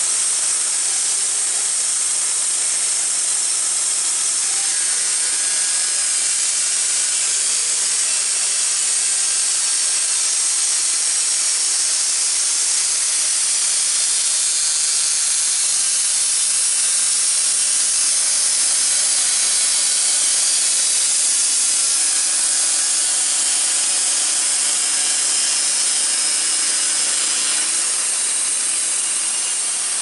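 Wood-Mizer LT15 portable band sawmill running, its blade cutting lengthwise through a maple log: a steady loud hiss of the blade in the wood over the hum of the mill's engine.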